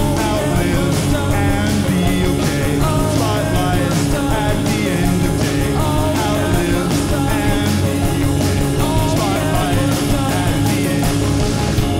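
A rock band playing a song live: a steady drum beat with cymbals, electric guitars and bass under a sung melody. The drums and cymbals stop right at the end, leaving the guitars ringing.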